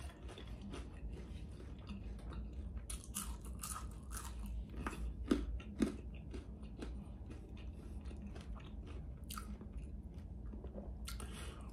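A person chewing and crunching mouthfuls of fast-food fries, with many small crackles and mouth clicks and a few louder crunches scattered through.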